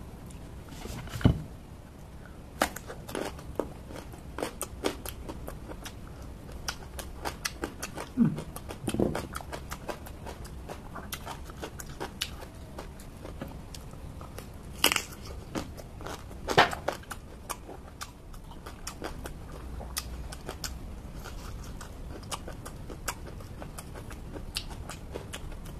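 Close-up crunching and chewing of raw, crisp vegetables such as cucumber, bitter melon and small green eggplant: a steady run of small crisp crackles with a few louder bites. A low thump comes about a second in.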